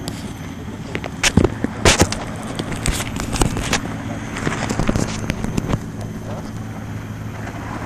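A steady low engine hum, with a cluster of sharp clicks and knocks about one to four seconds in.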